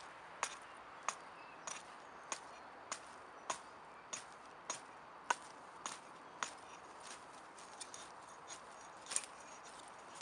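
Axe blade striking and shaving a small stick in short, evenly spaced strokes, about one every half second or so, growing lighter and less regular later on: an axe being tried out for carving fire-lighting shavings.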